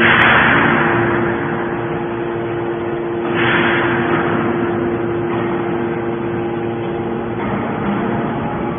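Hydraulic can baler running: a steady hum from its pump motor. Two rushes of hissing noise, about three seconds apart, come in sharply and each fades over a second or so.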